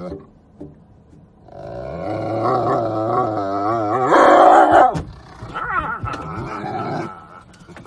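Black shepherd police dog giving a long, wavering growling howl, loudest about four seconds in, then further shorter growling calls that die away about seven seconds in.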